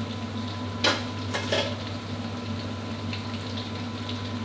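Chicken wings deep-frying in hot oil in a wok: steady sizzling and bubbling with light crackles. Two sharp knocks of a metal utensil against the wok, about a second in and again half a second later.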